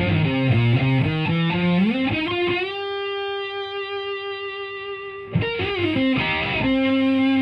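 Stratocaster through a Violet Ram's Head Big Muff fuzz pedal and a Marshall Plexi amp playing a fuzzed lead line: quick notes, a bend up into a long sustained note about two seconds in, another quick run about five seconds in, and a held note near the end.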